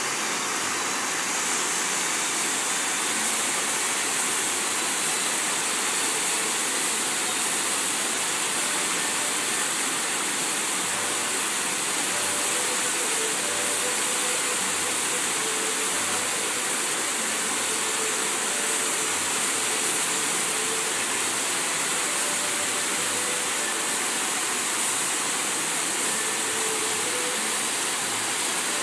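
Large fountain's water jets spraying up and splashing back into the basin: a steady, unbroken rush of falling water.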